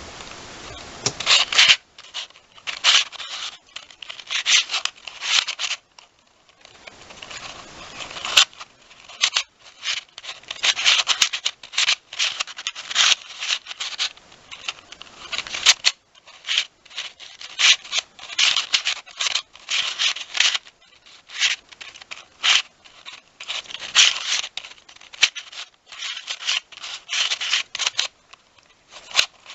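Square-1 speed cube being turned fast during a solve: bursts of plastic pieces scraping and clicking as the layers turn and slice, with short pauses between moves. The turning starts about a second and a half in, and there is a longer pause around six to seven seconds in.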